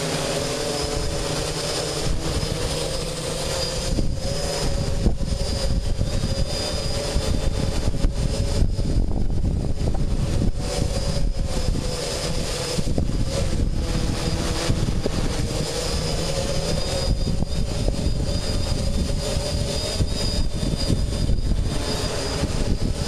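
DJI 550 hexacopter's six electric motors and propellers whining steadily in flight, the pitch wavering slightly as they work against the wind. Heavy gusty wind buffets the microphone underneath.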